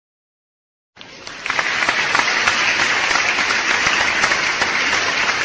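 Dense, steady crackling noise like applause, made of many small claps or clicks, starting suddenly about a second in after a short silence.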